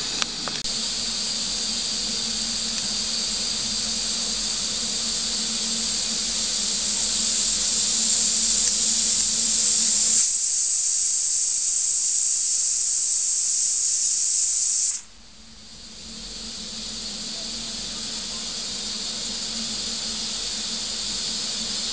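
Aluminium pressure cooker letting off steam past its weight with a steady loud hiss: the pressure-release whistle, counted to time the cooking. The hiss drops off sharply about fifteen seconds in, then slowly builds back.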